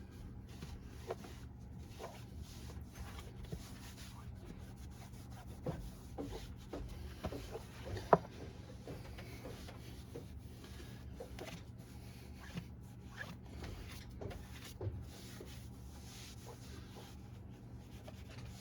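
Hands rubbing and pressing a glued lining into place, with faint scraping and scattered light taps, one sharper tap about eight seconds in. A steady low hum runs underneath.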